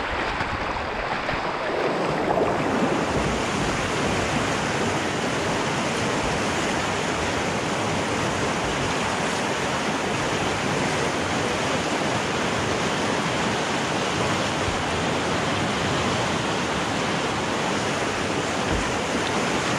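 Rushing whitewater of a river rapid: a steady, even rush of water with no pauses.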